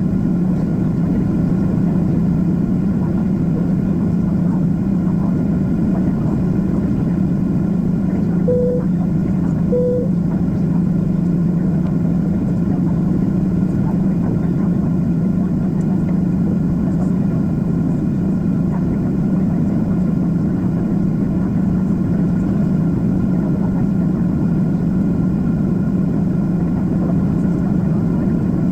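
Steady cabin noise of a Boeing 767-400 climbing out: an even rush of engine and air noise with a low hum, unchanging throughout. About a third of the way in, two short tones sound a second or so apart.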